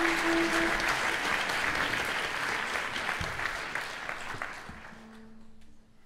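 Audience applauding, thinning out and dying away over about five seconds.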